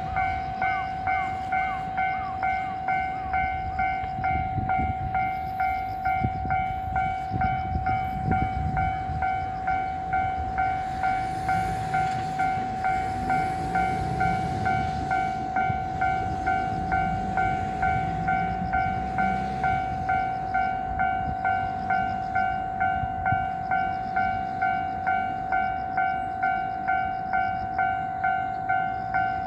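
Japanese railway level-crossing alarm ringing, a repeating electronic two-tone ding about three times every two seconds. Under it, the low rumble of a freight train in the distance, strongest in the middle.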